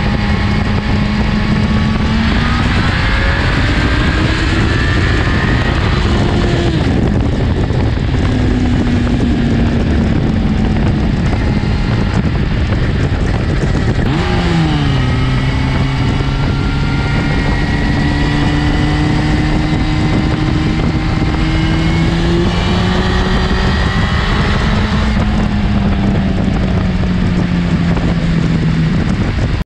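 Honda CBR900RR Fireblade's inline-four engine pulling the bike along on the road, heard from the rider's seat, its pitch climbing and dropping several times with throttle and gear changes, with a sharp drop about halfway through and then a slow climb. Wind rush runs under it.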